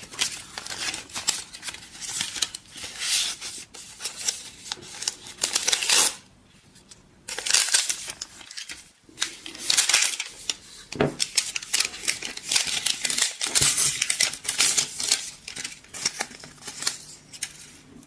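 Protective paper wrap rustling and crinkling in irregular bursts as it is pulled off a hair dryer's handle and handled, with a pause partway through and a couple of light knocks against the table.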